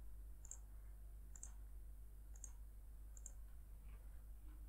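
Four faint computer mouse clicks, about one a second, over a steady low electrical hum.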